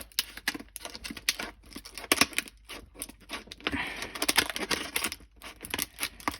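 Rigid plastic clamshell packaging being worked open along its edges: a quick, irregular run of clicks and crackles.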